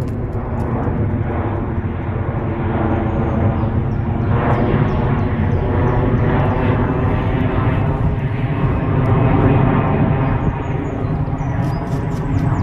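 Low-flying jet airliner passing overhead: its engines make a loud, steady rushing drone that grows louder over the first few seconds and then holds.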